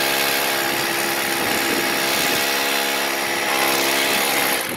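Electric drill running steadily as it bores a hole into a concrete beam, a constant motor whine over the grinding of the bit, cutting off right at the end.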